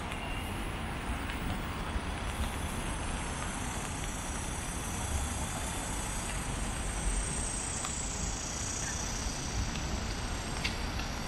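Steady city street ambience: a continuous wash of traffic noise with a low, unsteady rumble underneath and a few faint ticks.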